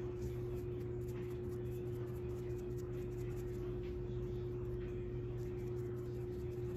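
A steady low hum with no change in pitch or level, with faint soft handling sounds over it.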